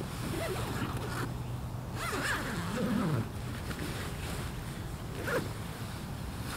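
Tent fabric and an inflatable sleeping pad rustling as a man shifts his weight inside a cramped one-person military tent and pushes at its wall. The rustling is louder about two to three seconds in, with a short sharp rustle just after five seconds.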